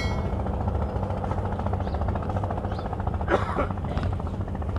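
An engine running steadily with a low, even hum. A brief distant voice is heard about three seconds in.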